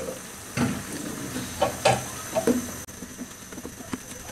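A slotted spatula stirring and tossing chopped vegetables in a nonstick frying pan with stock: a few knocks and scrapes against the pan in the first two and a half seconds, then lighter clicks.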